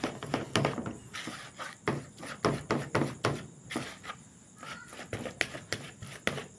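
A plastic spoon mashing and stirring a soft bait paste in a bowl, knocking and scraping against the bowl in quick, irregular strokes, several a second.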